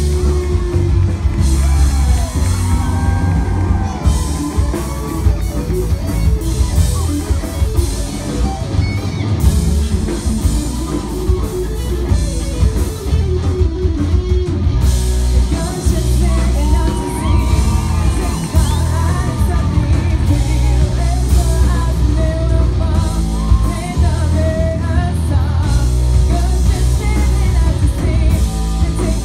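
Live amplified rock band playing: two electric guitars, bass guitar and drum kit, with a singer's vocals over them.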